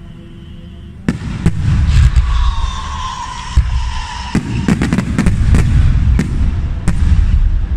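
Fireworks display: aerial shells launching and bursting overhead in a run of sharp bangs over a low rumble, starting about a second in after a quieter opening.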